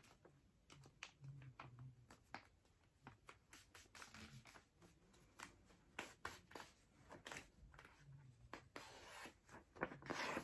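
Faint crinkles and rustles of a sheet of printer paper being creased by hand, in short scattered crackles, a little louder near the end as the sheet is lifted.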